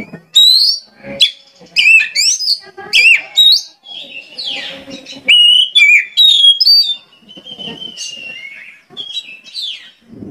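Oriental magpie-robin (kacer) in vigorous song: a fast run of loud, varied whistled notes and sweeping glides, with a harsh, rasping note midway. The singing stops near the end.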